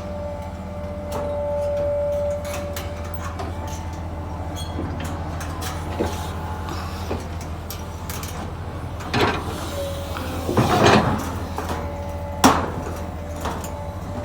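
Excavator running steadily with a high whine that fades in and out, over scattered knocks and clanks. A louder rush of noise comes about nine to eleven seconds in, and a single sharp knock follows shortly after.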